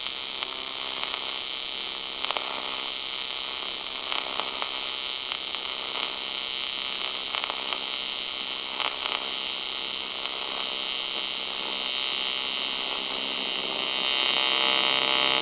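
AC TIG welding arc on aluminum from a Longevity Tigweld 200SX: a steady, high buzzing hum with a few faint crackles, growing slightly louder over the last few seconds.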